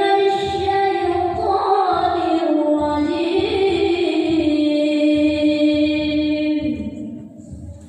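A female voice chanting Quranic recitation in a slow, ornamented melody, drawing out one long phrase that sinks and fades away about seven seconds in.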